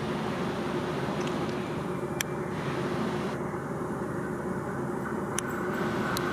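Renfe electric locomotive hauling a passenger train as it approaches on curved track: a steady rumble with a faint constant hum, and a few sharp ticks.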